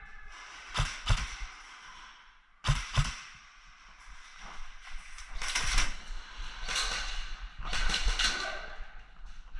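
Sharp knocks in two quick pairs, followed by several longer bursts of rustling and clatter.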